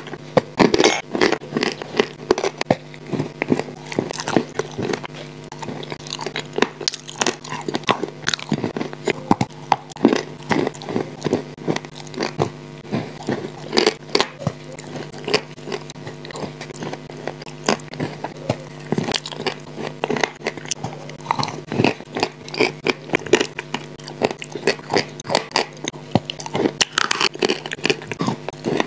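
Close-miked chewing and crunching of shortbread cookies mixed with clay paste and cream: a dense, irregular run of crunches, crackles and wet mouth sounds, over a steady low hum.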